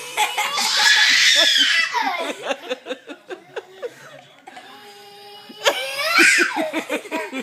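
Two bursts of laughter: each opens with a loud breathy outburst and trails off into rhythmic ha-ha pulses, the second starting about two thirds of the way through.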